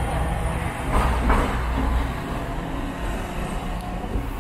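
Hong Kong double-decker electric tram running along its track: a steady low rumble and hum of the car, with a brief rattle about a second in.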